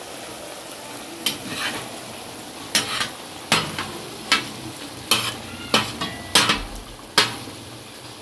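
Mutton chops masala sizzling in oil on a tawa while a spatula stirs and scrapes it across the griddle, about eight sharp scraping strokes spaced under a second apart over the steady sizzle.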